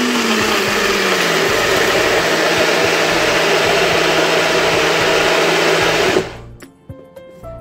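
Electric blender running, blending mango cubes, ice cubes and milk into a shake. Its motor hum sinks in pitch over the first second or so as it takes the load, then holds steady until it switches off about six seconds in.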